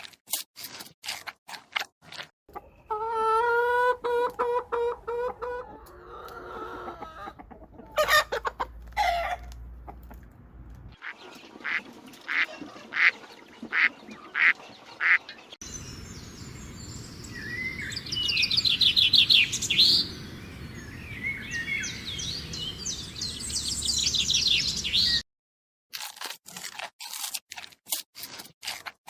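Chickens clucking and calling, in a run of short pieces that change abruptly, with a brief break near the end.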